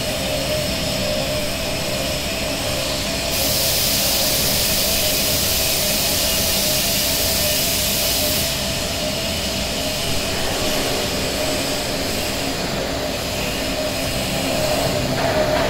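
Two-colour roll-to-roll stack-type flexographic printing press running steadily at about 28 metres a minute: a constant mechanical hum with a steady tone. A louder hiss comes in about three seconds in and drops away about five seconds later.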